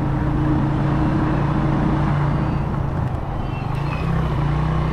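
Motorcycle engine running steadily while riding, its note rising slightly about four seconds in.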